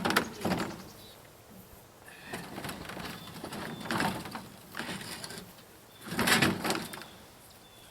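Sawmill roller-table sections being handled and slid out of a truck bed: a series of irregular scraping and clunking bursts, the loudest near the end.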